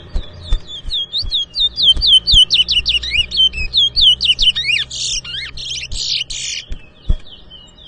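Towa-towa (chestnut-bellied seed finch) singing a song in a contest: a fast run of sweeping whistled notes, then harsh scratchy bursts, ending about seven seconds in. A few light knocks are heard as well.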